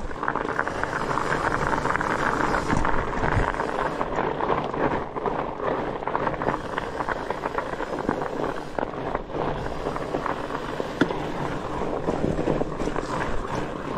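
Studded fat-bike tyres on a Trek Farley 7 rolling over crunchy ice and snow, a steady gritty crackle of many fine clicks, with wind on the microphone. One sharper click stands out about eleven seconds in.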